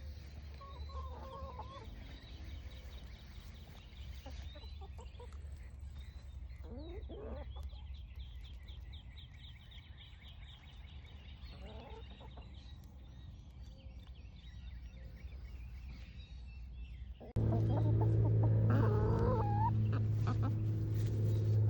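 Backyard hens clucking, scattered calls over a steady low hum. About seventeen seconds in, the sound turns abruptly louder, with a strong low hum and busier clucking.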